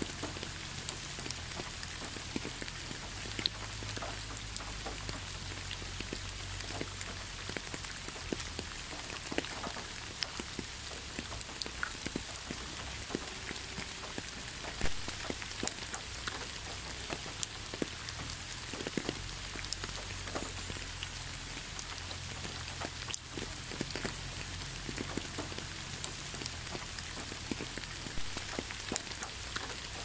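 Waterfall splashing: a steady hiss of falling water dotted with many small, irregular droplet ticks, over a low rumble.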